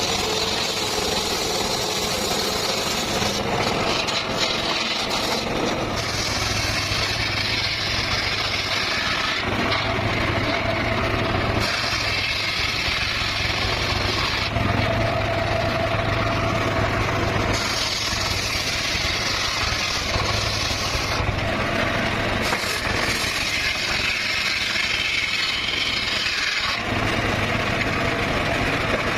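Circular saw running steadily, cutting wood or bamboo in repeated passes of a few seconds each, the high-pitched cutting noise swelling and easing as each cut goes through.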